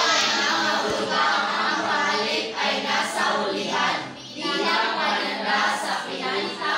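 A class of students reading a Filipino definition aloud together in unison, many voices reciting in step.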